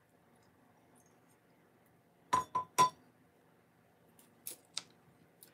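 Coffee mug set down on a hard counter with three quick, ringing clinks, followed a couple of seconds later by two faint ticks.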